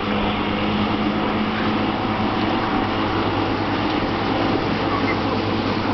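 Outboard motor running steadily at speed, a constant hum under the rush of water from the boat's hull and wake.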